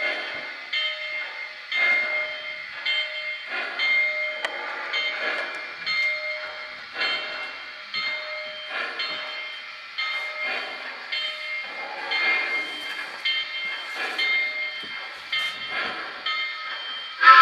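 Model 2-8-2 steam locomotive running slowly, its onboard sound system chuffing in a steady rhythm of about two chuffs a second over the rumble of the train rolling on the track.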